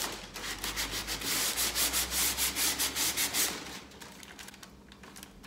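Hand sanding with a piece of sandpaper in quick, short strokes along the edge of paper ironed onto a board, wearing away the excess paper to leave a clean, even edge. The strokes fade out about three and a half seconds in.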